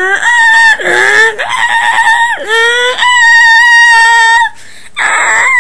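A person's voice screaming in a string of long, high-pitched cries, each held up to about a second and a half with short breaks between them.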